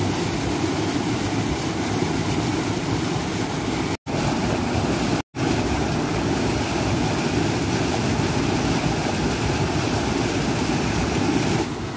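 Stream water rushing steadily over a small rocky waterfall. The sound cuts out for an instant twice, about four and five seconds in.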